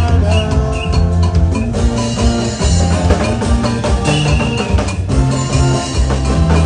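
Upbeat dance music with a steady drum beat and a heavy bass line. About four seconds in, a short high tone is held for about half a second over the music.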